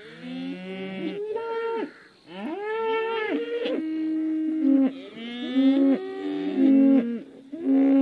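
Several cattle mooing, their long calls overlapping and following one another, some low-pitched and some higher.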